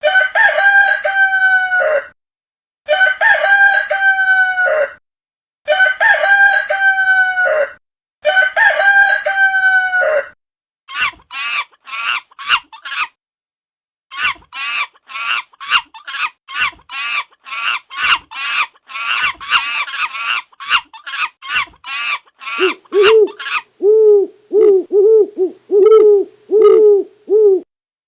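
A rooster crowing four times, each crow about two seconds long. This is followed by a long run of short, quick calls. Near the end comes a lower-pitched call repeated rapidly.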